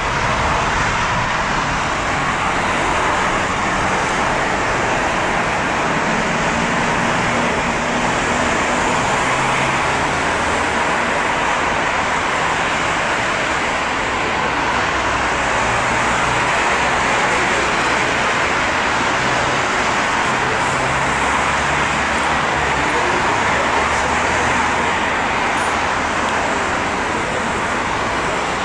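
Steady loud roar of a Boeing 777-300ER's two GE90-115B turbofans at takeoff thrust, as the jet rolls, lifts off and climbs away, mixed with road traffic noise.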